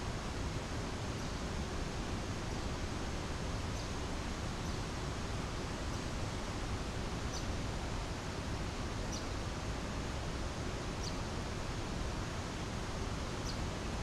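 Steady rushing water from a rainforest waterfall. About six short, high bird chirps come through it at irregular intervals.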